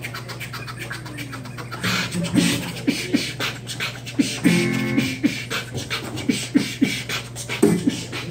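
Amplified acoustic guitar played percussively: quick taps, slaps and scratchy muted-string hits in an uneven beat-like rhythm over a steady low drone, with a short pitched tone about halfway through.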